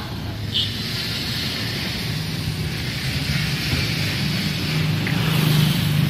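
A car engine running close by, its low hum growing louder and shifting in pitch toward the end, over a steady rush of traffic noise.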